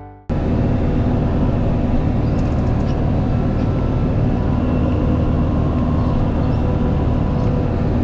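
Engine of a snow-clearing farm machine running steadily at an even speed; it cuts in abruptly just after the start.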